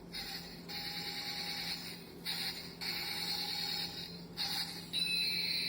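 Small electric motor of a battery-powered toy military tank whirring in several short spurts with brief stops between them, as the toy's gun turret is turned; a steady high whine sets in near the end.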